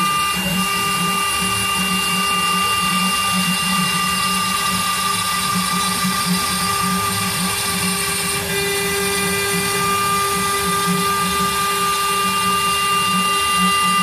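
Homemade CNC router spindle running steadily with a high whine while its bit carves a relief into a wooden panel.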